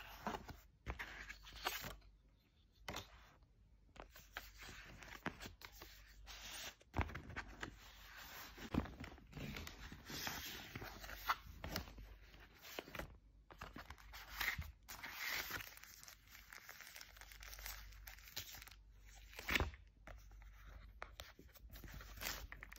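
White cardboard packaging and its paper-wrapped contents being handled by hand: irregular rustles with a few sharp taps.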